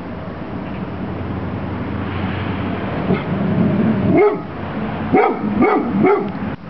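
A large dog barking four short times in the second half, over a steady low sound.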